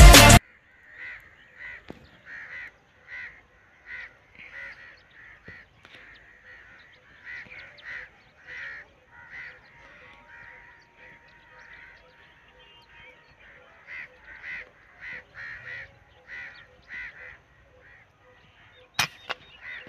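Birds calling over and over in short calls, about two a second, and about a second before the end a single sharp crack of an air-rifle shot.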